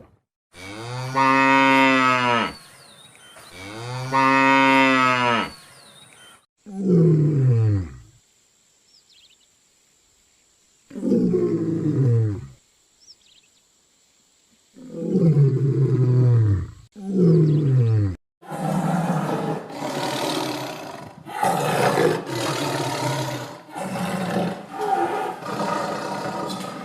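Cattle mooing: two long, low calls that rise and fall in pitch, then several shorter calls that slide downward. About two-thirds of the way through, these give way to a denser stretch of rough, overlapping calls.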